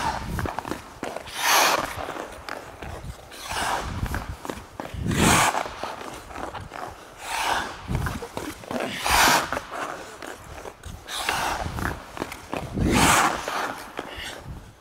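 Hockey skate blades scraping the ice in repeated one-foot snowplow stops: a hissing scrape about every two seconds, about seven in all, with quieter skating strides between.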